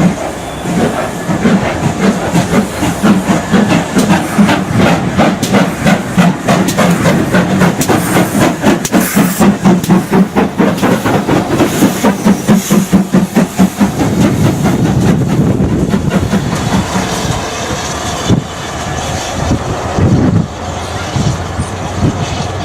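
A double-headed steam train working hard: a rhythm of exhaust chuffs with steam hissing. After about fourteen seconds the beats give way to a steadier rumble.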